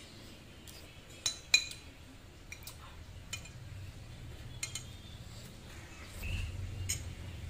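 A metal spoon clinking against a bowl while stirring sauce: scattered light clinks, with two sharp, louder ones about a second and a half in.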